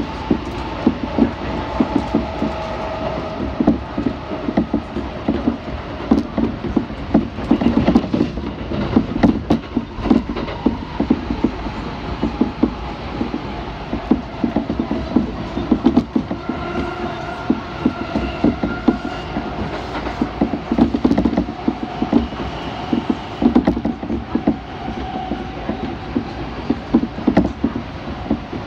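Kintetsu electric train running at speed, heard from inside the carriage: a steady rumble with wheels clicking and clattering over the rails. A thin whine comes and goes in the second half.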